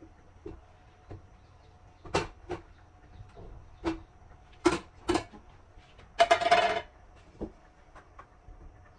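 Kitchen handling sounds: a string of separate sharp knocks and clacks of cupboards, dishes and pans, then a short, louder scraping rattle a little after six seconds in.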